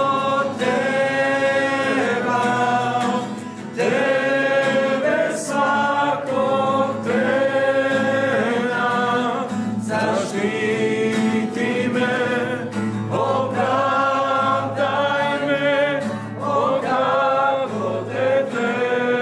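A group of men singing a Christian worship song together, led by a singer with acoustic guitar accompaniment, in long held phrases.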